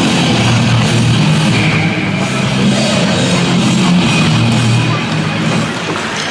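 Loud rock music playing, steady throughout.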